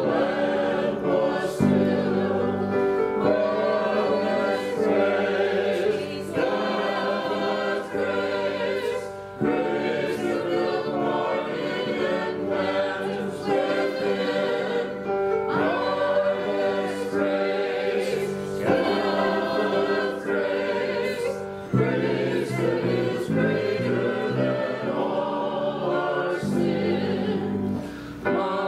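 Worship band playing a hymn about God's grace: several voices singing together over keyboard and guitar, with low bass notes changing every few seconds.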